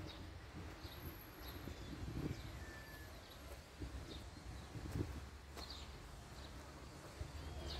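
Faint outdoor ambience: small birds chirping now and then over a low wind rumble, with a sharp knock about five seconds in.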